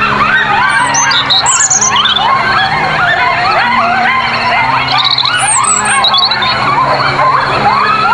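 A dense chorus of many animals calling at once, a constant overlapping mass of short rising calls, over a steady low backing tone.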